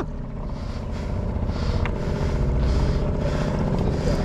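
Small gas outboard motor running steadily at low speed with a rapid, even putter, warmed up after a hard start.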